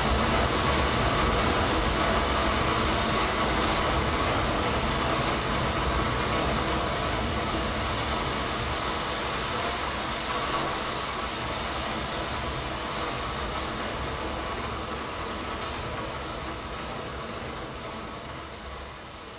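A steady, dense rumbling noise drone with no clear beat or melody, fading out slowly and evenly.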